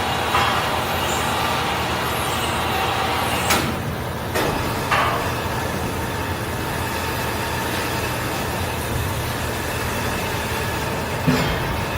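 Steady machinery noise in a metalworking factory, a constant hum under an even roar, broken by a few short sharp sounds: two around the middle and one near the end.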